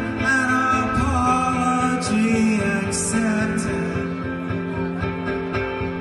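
Live song: an electric guitar played with a male voice singing over it. The voice drops out a little past halfway, leaving the guitar ringing on.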